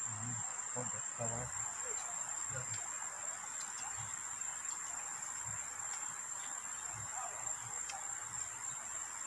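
Insects chirring in one steady, high, unbroken tone, with low murmured voices in the first second or so.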